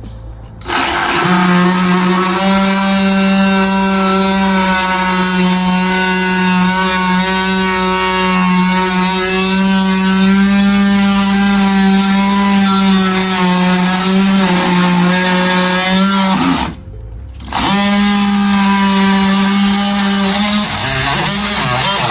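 Cordless oscillating multi-tool running steadily with a high, even buzz, cutting old caulking off a bumper. It stops for about a second two-thirds of the way through, starts again, and winds down near the end.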